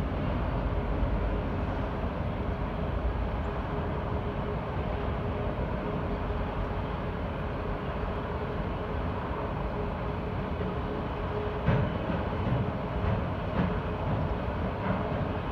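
Autorack freight cars of a CSX train rolling past: a steady rumble of wheels on rail, with a faint steady tone over it and a few sharp knocks from about twelve seconds in.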